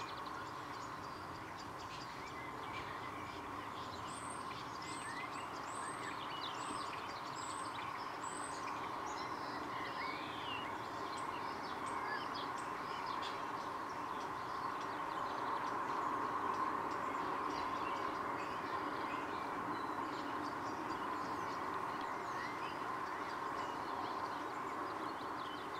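Wild garden birds singing and calling over steady background noise. A run of about seven quick, high repeated notes comes between about four and nine seconds in, with scattered chirps and whistles around it.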